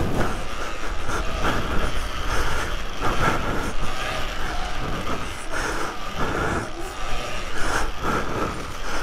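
Electric off-road motorbike ridden over dirt bumps: a whine that comes and goes over a rumble of tyres, with irregular knocks and rattles from the bumps.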